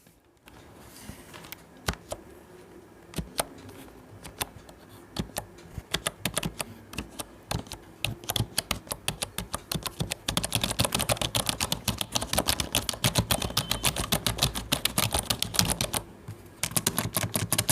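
Keys of a membrane computer keyboard being pressed: a few separate key presses at first, then fast continuous typing from about ten seconds in, with a short pause near the end.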